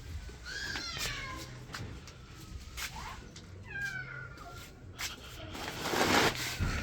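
A cat meowing twice, two falling cries about three seconds apart, followed near the end by a louder burst of noise.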